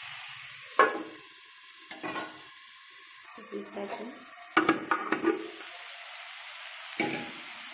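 A tomato and curry-leaf masala sizzling in oil in an aluminium kadai. Metal clanks from the pan's aluminium lid and spatula: a sharp one about a second in, a few light clinks around two seconds, a cluster of clinks a little past halfway, and one more near the end.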